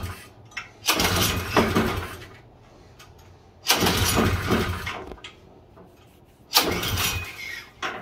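An LCT Storm Force 179cc single-cylinder engine pull-started three times. Each pull makes it run for a second or so and then die out. The owner suspects there is no fuel in the carburetor bowl.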